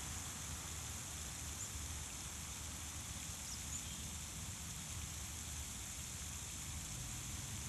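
Steady outdoor ambience of low rumble and hiss, with a few faint, brief high chirps from a small bird about one and a half and three and a half seconds in.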